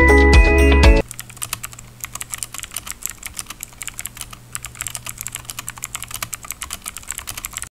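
Rapid computer-keyboard typing: a quick, continuous stream of keystroke clicks, used as a sound effect for text being typed out, stopping abruptly just before the end. Upbeat music cuts off about a second in, just before the typing starts.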